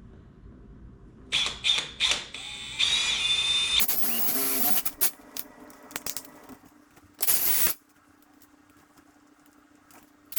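Power drill boring a quarter-inch hole, with a high squeal as the bit cuts. It runs in a few short starts from about a second in to about five seconds, then one more brief burst a couple of seconds later.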